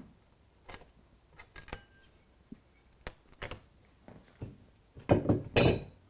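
Short, irregular scrapes and clicks of a metal spreading knife working over wet Smooth-It road filler on the layout baseboard, with a louder, longer scrape about five seconds in.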